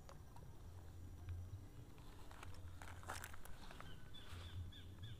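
Faint rustling and scattered clicks, with a louder rustle about three seconds in. Near the end a bird gives several short, falling chirps.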